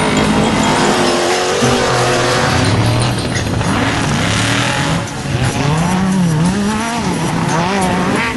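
Off-road race vehicle engines running hard, their pitch rising and falling repeatedly as they rev, over a steady rush of noise.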